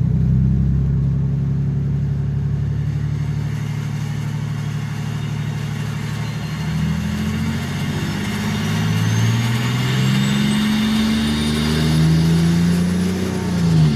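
Big-turbo BMW 330d's M57 straight-six diesel, through a straight-through 4-inch exhaust, running steadily and then revving up and down several times. A high turbo whistle climbs steadily in pitch as the turbo spools, and the engine peaks just before the end.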